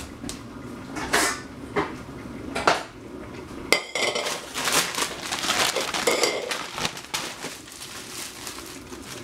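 A stainless steel saucepan clanking and clinking as it is handled and set down on a tiled counter. Two of the knocks, one about four seconds in and one about six seconds in, ring briefly. Rustling and handling noises come between the knocks.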